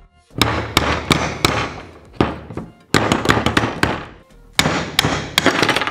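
A dozen or so sharp knocks in three or four quick bursts as the hard plastic pulley of a BMW N42 water pump is struck to force it off its hub, a rough method that cracks the pulley.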